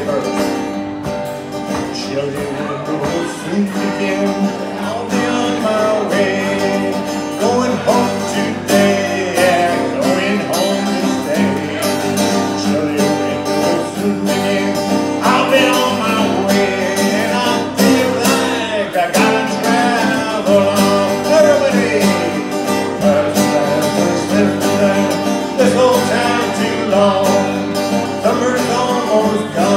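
Live acoustic guitar strummed steadily in a country-folk song, with singing over it.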